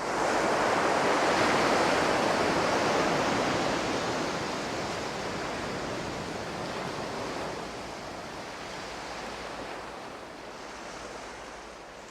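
Ocean surf: a wash of breaking waves that is loudest at the start and slowly fades away.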